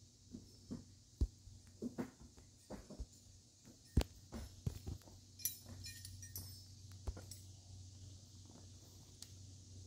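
Irregular knocks and thumps, about a dozen in the first six seconds, the loudest about four seconds in, as the phone is handled and swung around. A steady low hum and a faint high hiss run underneath.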